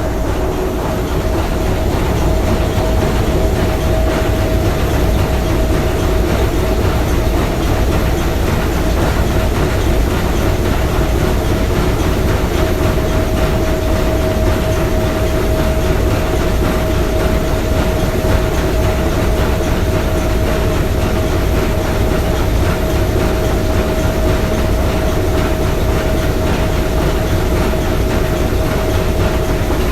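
S.S. Bohuslän's three-cylinder triple-expansion marine steam engine running steadily: a dense, continuous mechanical clatter with a steady hum running through it.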